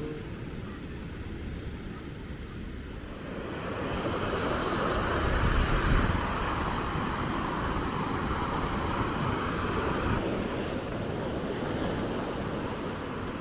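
Ocean surf breaking and washing up the beach, swelling about three seconds in, with wind rumbling on the microphone.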